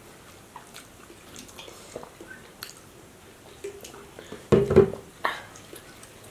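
Eating by hand: fingers picking at fried fish on a banana leaf and chewing, heard as scattered small wet clicks. About four and a half seconds in comes a short, louder sound.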